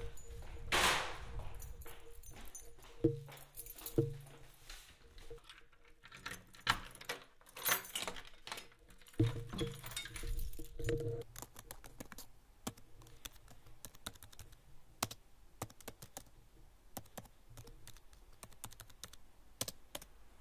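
A series of knocks and clicks: a few heavier thuds in the first half, then lighter, quicker clicks scattered through the second half.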